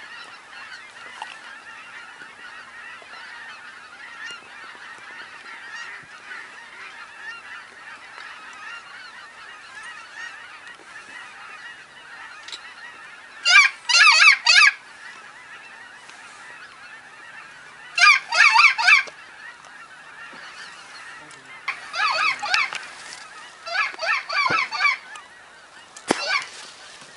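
Geese honking: a steady, busy chatter of many distant honks, broken several times by louder bursts of rapid honking close by, each about a second long.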